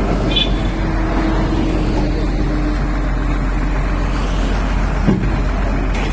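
JCB 385 LC tracked excavator's diesel engine running steadily under load as the machine crawls off the end of a lowbed trailer, with one sharp knock about five seconds in.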